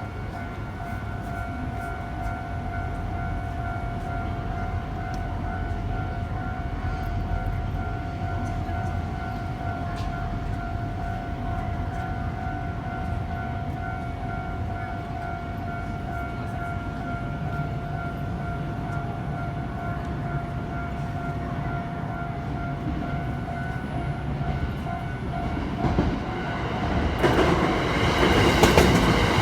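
Japanese railway level-crossing alarm ringing steadily over a low rumble. A few seconds before the end a train reaches the crossing and passes loudly, its wheels clattering over the rails.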